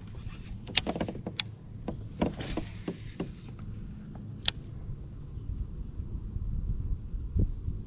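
Baitcasting reel being cranked on a lure retrieve, a low whirring with a few sharp clicks in the first second and a half and another a little past the middle.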